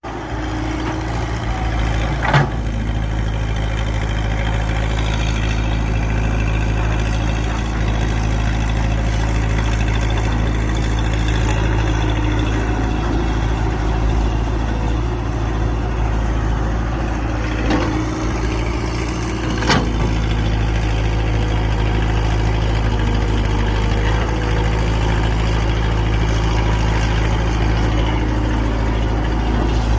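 Excavator's diesel engine running steadily, with a few sharp knocks: one about two seconds in and two more a couple of seconds apart later on.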